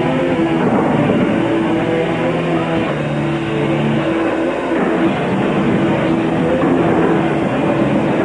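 Live rock band playing loud: distorted electric guitar, bass and drums, with held notes ringing for a second or two at a time.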